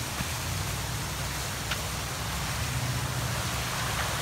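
Steady outdoor background noise, an even hiss over a low rumble, with one faint click near the middle.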